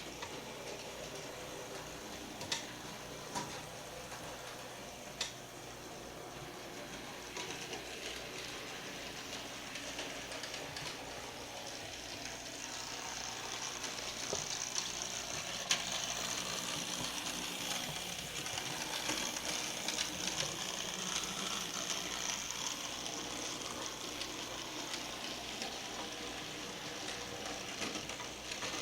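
HO scale Roundhouse 2-8-0 model locomotive running on track: a steady whir of its small motor and gears with the rattle of its wheels on the rails, and a few sharp clicks in the first several seconds. It grows louder about halfway through as it comes closer.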